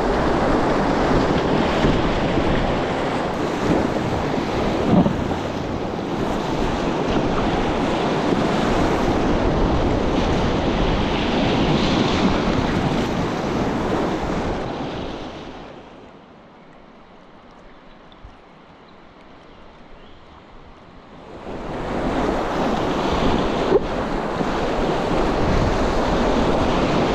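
Whitewater rapids rushing around an inflatable packraft as it is paddled through, a loud steady rush with wind buffeting the microphone. About sixteen seconds in the rush drops to a much quieter, duller hiss for roughly five seconds, then comes back loud.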